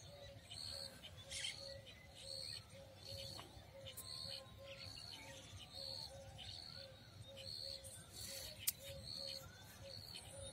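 Faint birds calling over and over: a short high chirp two or three times a second, with a lower note pulsing at about the same pace. A single sharp click near the end.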